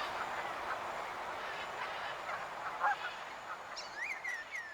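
A flock of wild geese honking, many overlapping calls blending into a steady din, with a few single honks standing out clearly near the end.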